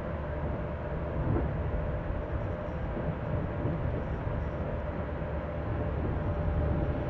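Low, steady rumble of a train rolling slowly, heard from inside a carriage, with a faint steady hum over it.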